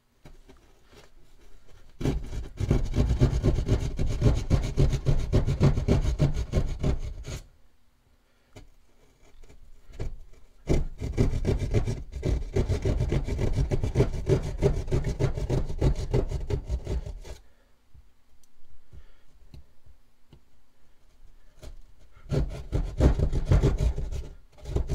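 Hand drywall jab saw cutting an opening through drywall in quick back-and-forth strokes. It saws in three bouts, the first about two seconds in, the second starting near the middle and running about seven seconds, the third near the end, with quieter scraping between them.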